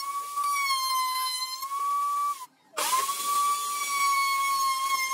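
Table-mounted router running with a steady high-pitched whine while a wooden ring is fed around its bearing-guided trim bit. The whine drops out for a moment about two and a half seconds in, then returns with a quick rise in pitch.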